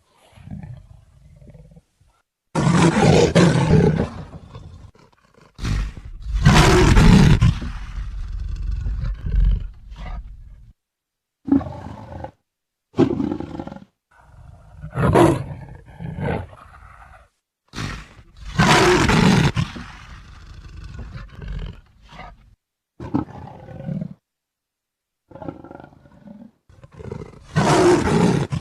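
Leopard roaring again and again: about eight separate loud calls, some brief and some lasting two to four seconds, with complete silence between them.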